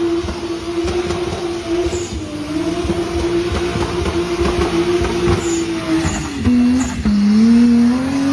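An off-road vehicle's engine held at high revs under load, running at a steady pitch. About six seconds in the revs drop, then climb again.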